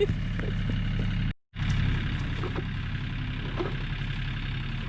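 Tractor engine running steadily, broken by a brief cut to silence about a second and a half in.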